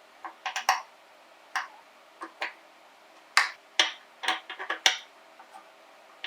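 Irregular sharp clicks and knocks of hard parts being handled, about fifteen at uneven intervals, several coming in quick clusters.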